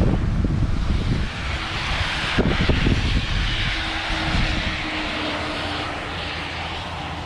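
Wind buffeting the microphone in gusts, with a rushing noise of something passing that swells for a few seconds in the middle and fades, a faint steady hum inside it.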